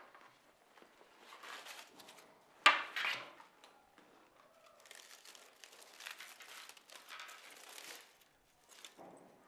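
Rustling, then aluminium foil crinkling as a foil-wrapped item is unwrapped by hand. About two and a half seconds in there is one sharp knock, the loudest sound, as a hard object is set down on the desk.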